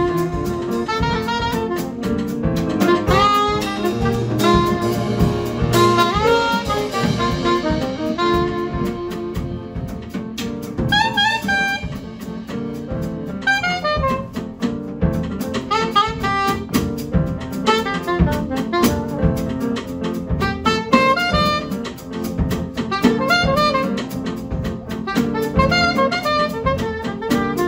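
Live jazz: a saxophone plays quick melodic runs over grand piano and a drum kit with cymbals.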